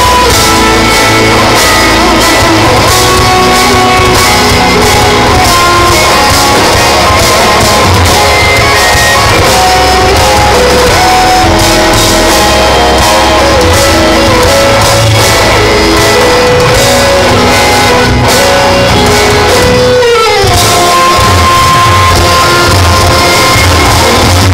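Live instrumental progressive metal: two eight-string electric guitars and a drum kit playing loud and dense. About twenty seconds in, a guitar note slides steeply down in pitch, then a single high note is held.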